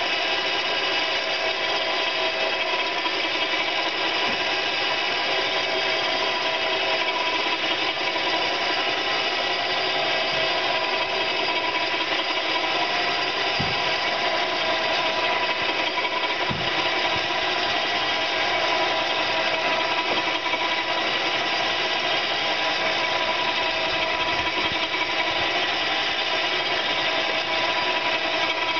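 Powered winch motor running steadily under load as it hauls a boat across the yard on its cable. Two brief low knocks come about halfway through.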